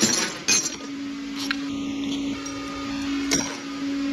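A few sharp metal clinks of hand tools and transmission parts over a steady machine hum, as bolts are worked loose on a Ford 4R75E automatic transmission.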